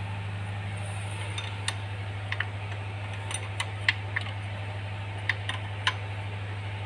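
Kubota M9540 tractor's diesel engine running at a steady idle just after its first start following a rebuild. It makes an even low hum with a fast pulse, and scattered light clicks and ticks come over it.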